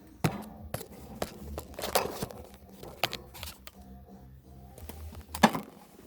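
Irregular knocks, taps and clicks of objects being handled and set down on a hard surface, the loudest knock about five and a half seconds in, over a faint steady low hum.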